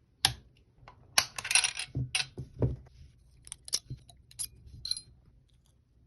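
Metal parts of a Vz24 Mauser rifle clicking and clinking against each other as the rifle is taken apart by hand: a series of irregular sharp metallic clicks, busiest about a second in.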